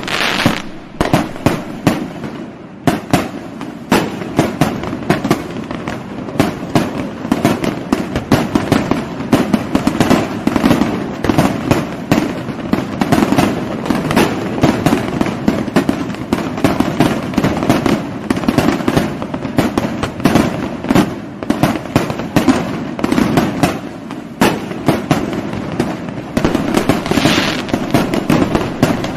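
Fireworks going off in a dense, continuous barrage: many sharp bangs and crackles a second with no let-up, a few louder bangs standing out above the rest.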